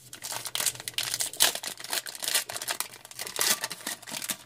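A trading-card pack wrapper being torn open and crinkled by hand: an irregular run of crackling and crinkling.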